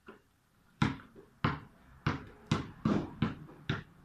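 A basketball being bounced repeatedly, about eight sharp bounces that come faster in the second half.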